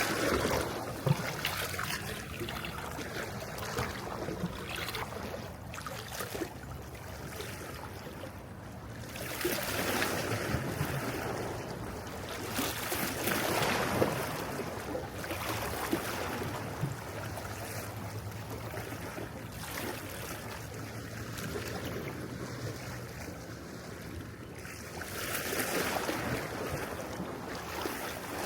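Mediterranean sea waves washing onto the shore, a hissing surge that swells and falls back every several seconds.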